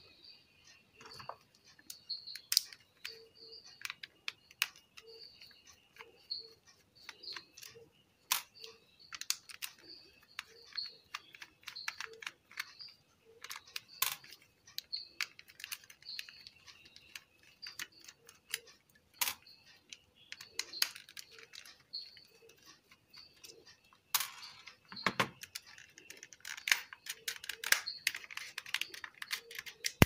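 Small clicks and taps of a precision screwdriver and plastic parts while screws are taken out of a car stereo's detachable front panel, thickening into a quick run of clicks near the end. A faint high chirp repeats steadily in the background.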